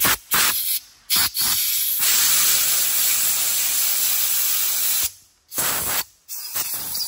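Compressed-air blowgun hissing into a freshly tapped, counterbored bolt hole in a Subaru EJ25 engine block, blowing out cleaner and metal shavings before a thread insert goes in. It comes as three short blasts, then one steady blast of about three seconds, then two more short blasts near the end.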